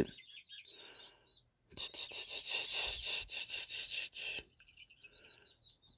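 A scratchy rubbing noise for about two and a half seconds, starting about two seconds in, with faint high chirps after it.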